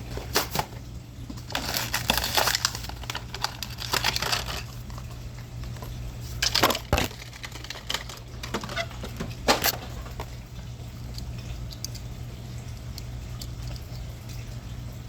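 Cardboard and plastic blister packaging of a die-cast toy car being handled and pried open, in short bursts of crackling and crinkling during the first ten seconds, then only faint handling over a low hum.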